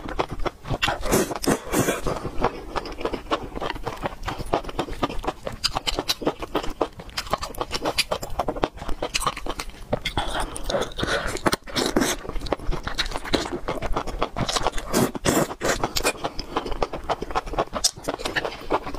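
Close-miked slurping and chewing of spicy enoki mushrooms in chili oil: wet smacking and many quick clicks of the mouth, with no speech.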